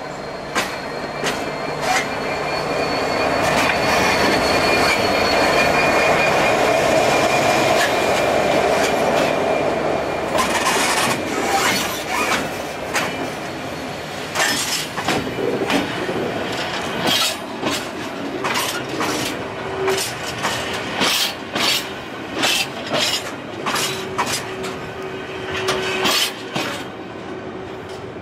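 A GB Railfreight Class 66 diesel-electric freight locomotive passes close by: its diesel engine swells to its loudest a few seconds in, along with a steady high-pitched wheel squeal. A string of flat wagons then rattles past with many irregular sharp clanks and clicks from the wheels, fading just before the end.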